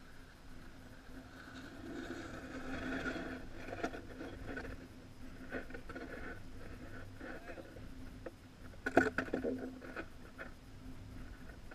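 Footsteps crunching and scraping on crusty snow and ice close by, with a sharp knock about nine seconds in as a snowboard is set down on the ice.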